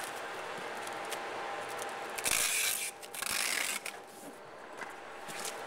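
Cardboard box being sealed with clear packing tape: hands rubbing over the tape and lid. There are two harsh rasping strokes a little over two seconds in, each about half a second long.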